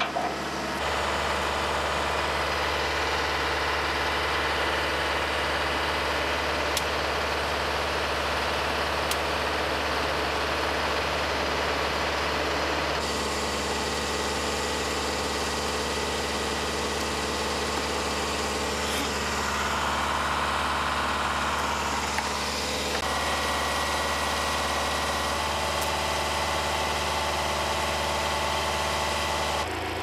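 Bulldozer's diesel engine running steadily, its sound changing abruptly a few times as the shot changes.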